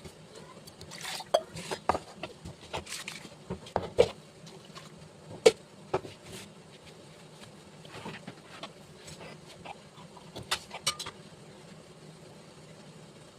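Kitchen utensils clinking and knocking in irregular strikes, over a steady low hum.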